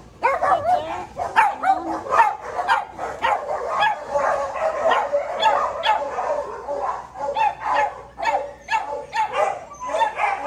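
Dogs in shelter kennels barking and yipping, the short calls overlapping almost without pause.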